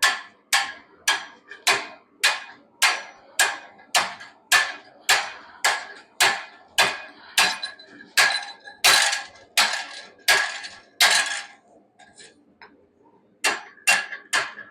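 Hand hammer striking hot wrought iron on an anvil in a steady rhythm of about one and a half blows a second, each blow ringing. The hammering stops about eleven seconds in, and a few more blows follow near the end.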